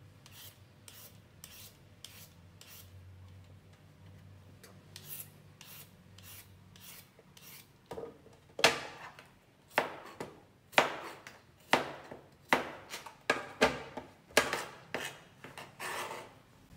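Julienne peeler drawn down a cucumber stroke after stroke, each pull a short rasp as the serrated blade shreds the flesh into thin strips. The strokes are faint at first, then about ten louder ones come roughly once a second over the second half, quickening near the end.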